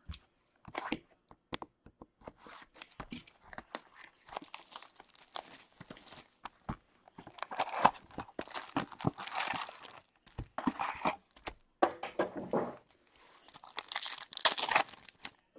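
Wrapping of a box of O-Pee-Chee Platinum hockey cards and its foil packs being torn open by hand. Light taps and clicks of cardboard, then several bursts of tearing and crinkling.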